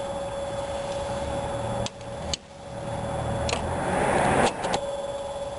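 Chrome window trim being handled and pressed onto its retaining clips: a few sharp clicks and a rising rustle of the trim being worked into place, over a steady background hum.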